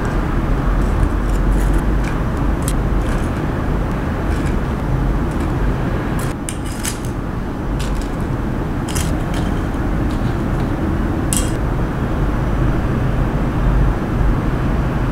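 A steady low background rumble with scattered light metallic clicks of stainless steel serving tongs handling fried chicken pieces on a wooden board.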